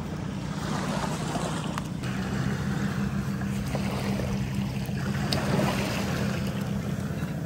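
An engine running steadily with a low hum, under a constant rush of wind and water noise.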